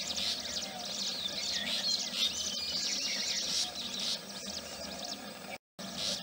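A dense chorus of small birds, baya weavers among them, chirping and twittering with many quick high notes overlapping. The sound drops out completely for a split second near the end.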